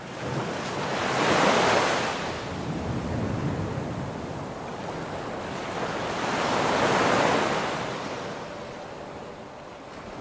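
Ocean surf breaking on a beach, a steady wash of noise that swells twice, loudest about a second and a half in and again around seven seconds in.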